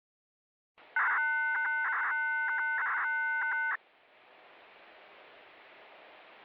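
A multi-tone radio control signal: several steady tones sounding together for about three seconds, broken by brief gaps, received on a scanner tuned to the analog disaster-prevention radio channel. It cuts off sharply and steady radio hiss follows.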